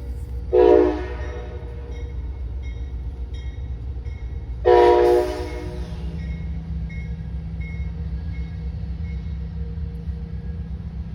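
Amtrak passenger train at the station sounding its air horn twice: a short blast about half a second in and a longer one a few seconds later, over the steady low rumble of the locomotive. A fainter ding repeats about twice a second through the middle.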